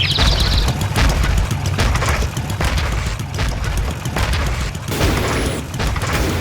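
Sci-fi robot sound effect: a steady deep rumble under a stream of sharp mechanical hits and booms, with a rapid high chattering that cuts off a little after the start and a hissier stretch near the end.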